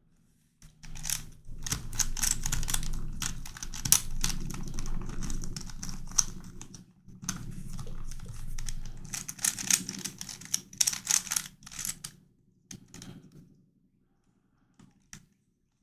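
Non-magnetic plastic YuXin Corner Helicopter 2x2 puzzle being turned quickly by hand: a dense run of plastic clicks and clacks that thins to a few scattered clicks after about twelve seconds and stops near the end.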